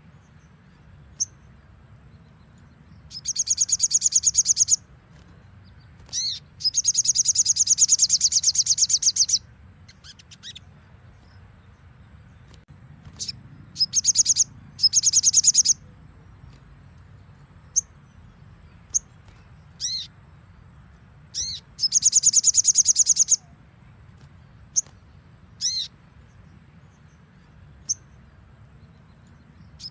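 Sogon bird (little spiderhunter) singing: about five rapid, rattling high trills of one to two seconds each, interspersed with short, sharp single call notes. A faint steady hum runs underneath.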